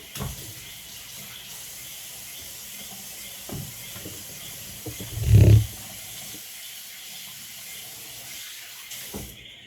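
Kitchen tap running steadily into a sink while hands are washed, stopping near the end. A loud, dull thump comes about halfway through.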